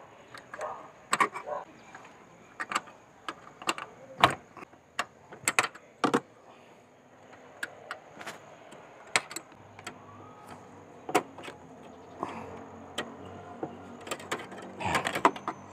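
Irregular sharp metallic clicks and clinks of an open-end wrench on the steel brake line flare nuts at a brake master cylinder, as the fittings are worked loose.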